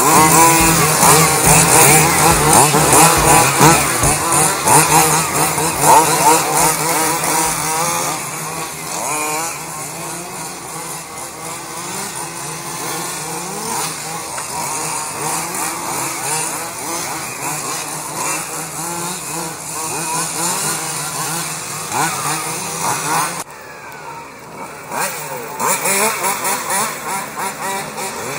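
Several quarter-scale RC race cars' Zenoah 270RC two-stroke petrol engines buzzing and revving as the cars lap, the pitch rising and falling as each one accelerates and lifts off. It is loudest in the first several seconds, then more distant, with a brief drop about three-quarters of the way through.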